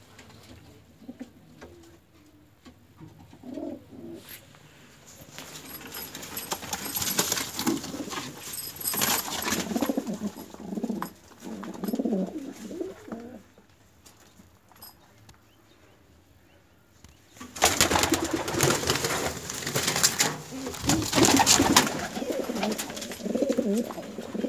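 Domestic pigeons cooing in a low, warbling murmur. It is broken by two spells of loud rustling noise: one about a quarter of the way in, as a pigeon flaps its wings, and a longer one in the last third.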